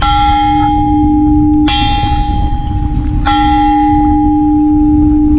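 Makeshift hanging steel bell, an old wheel rim on a tripod, struck three times by hand with a clapper about one and a half seconds apart. Each strike rings on in a long, clanging metallic tone.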